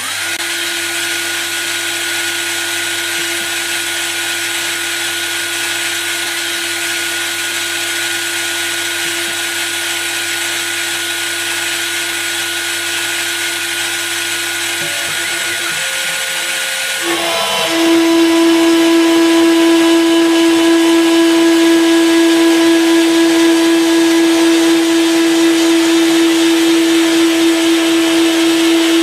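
Spindle of a GoCNC Hobby A3 Basic hobby CNC milling machine running with a steady whine. About seventeen seconds in, the sound shifts and grows louder, with extra higher tones joining it.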